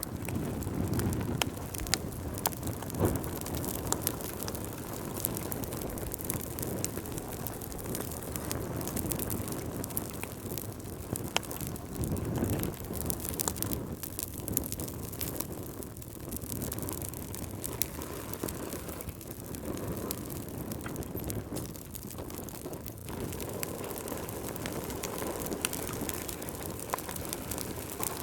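Wood fire burning in a fireplace: a steady low rush of flames with frequent sharp crackles and pops scattered throughout.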